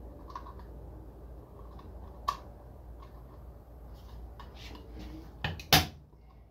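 Hard plastic clicks as the white retaining clip is forced onto the two joined halves of a Bose cube speaker: one sharp click about two seconds in, then a quick cluster of clicks ending in the loudest snap about a second before the end.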